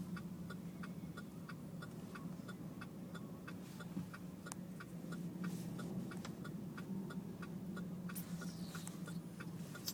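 Steady, fast, even ticking inside a vehicle's cab, about four clicks a second, over a steady low hum from the running engine and heater.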